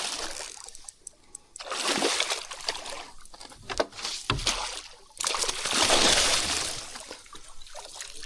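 Water splashing and sloshing in two long bursts, the first about one and a half seconds in and the second from about five seconds to near the end, with scattered sharp clicks.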